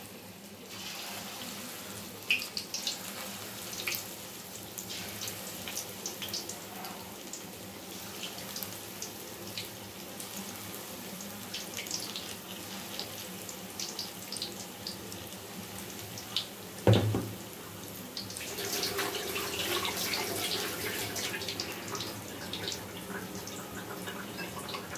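Hot oil sizzling and crackling steadily in an iron kadai as small rice-flour bonda batter balls deep-fry. A single thump comes about two-thirds of the way through, and the sizzling swells for a few seconds after it.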